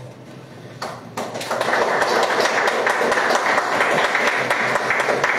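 Applause: several people clapping their hands, starting about a second in and keeping on steadily.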